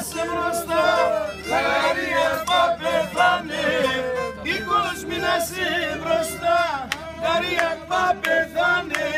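A group of voices singing a Pontic Greek folk song together, with a bowed fiddle playing along.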